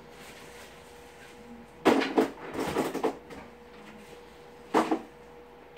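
Plastic toys knocked and clattered against a toddler's play table: a burst of knocks about two seconds in, then one sharp knock near the end.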